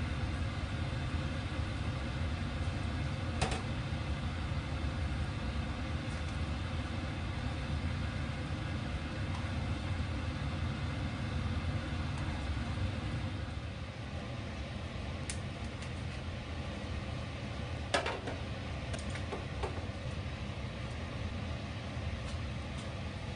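A steady low mechanical hum, with a few sharp clicks and knocks from a plastic rice paddle and the lid against a Staub cast-iron pot as cooked rice is turned over.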